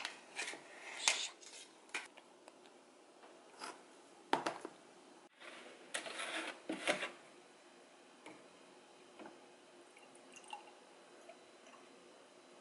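Crinkling and clicking as the seal is peeled off a canister of instant cappuccino powder, then a few knocks and short rustles from a plastic milk jug and a ceramic mug being handled on a stone countertop. After that only faint ticks are heard.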